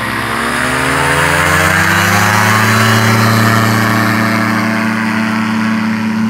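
Ultralight trike engine revving up as the trike rolls close past on the grass. The pitch climbs over the first couple of seconds and then holds steady, loudest about three seconds in.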